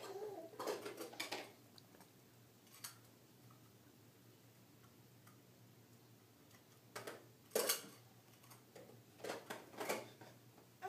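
Plastic toys clicking and knocking as a baby handles them at a toy activity table: scattered small clacks in clusters, about a second in, near three seconds, around seven seconds and again near ten seconds, with quiet gaps between.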